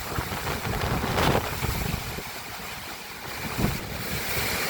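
Windstorm with heavy hail and rain: a dense rushing noise of gusting wind and pelting precipitation that eases slightly in the middle and builds again.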